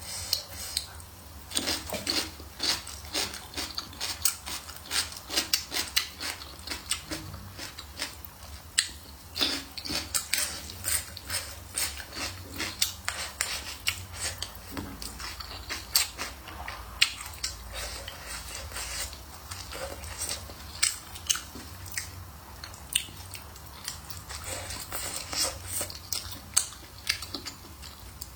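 A person chewing and smacking food close to the microphone, with many short wet clicks and smacks, several a second.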